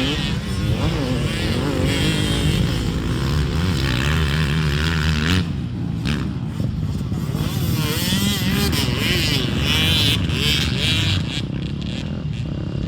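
Motocross dirt bike engines revving, their pitch rising and falling again and again as the throttle is worked.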